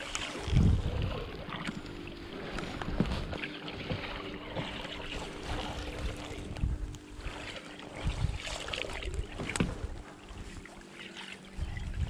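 Clothing rubbing and knocking against a chest-worn camera's microphone, with sharp clicks from a lifejacket zipper tapping the mic and repeated low thumps, over a steady low hum.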